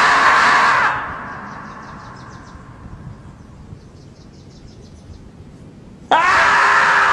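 The 'screaming marmot' meme: a marmot standing upright gives a loud scream about a second long that dies away slowly, then screams again about six seconds in.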